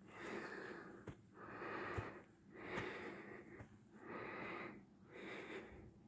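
A person breathing heavily close to the microphone: noisy breaths in and out in a steady rhythm, about one every second and a bit.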